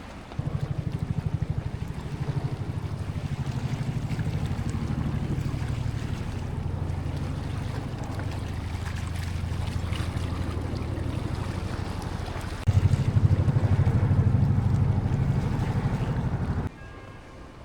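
An engine running with a steady low throb, louder about thirteen seconds in, then cutting off near the end.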